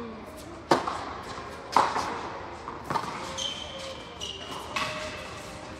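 Tennis balls struck by rackets in a large indoor tennis hall: three sharp, echoing hits about a second apart, with lighter knocks from play on other courts and a couple of brief high squeaks after them.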